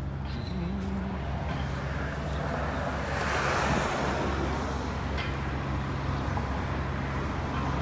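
Wind noise on the microphone over a steady low engine hum, the noise swelling briefly about three seconds in.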